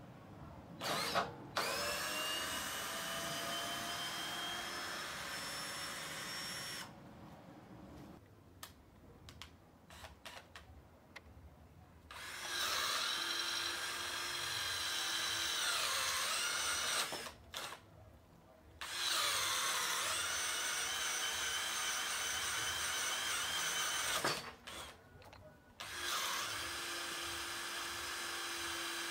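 Total 20V cordless drill-driver running in four bursts with short pauses between them, its motor whine rising as it spins up at the start. It is boring through a wooden board with flat spade bits. Between the runs there are a few light clicks.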